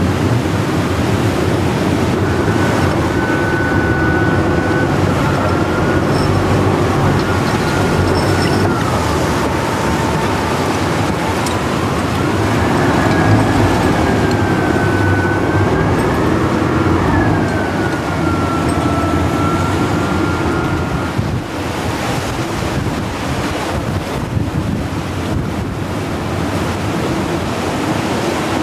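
Storm wind and heavy breaking sea around a boat, with a steady low engine rumble and wind buffeting the microphone. From a few seconds in until about two-thirds through, a thin high whistle slides slowly up and down over the noise.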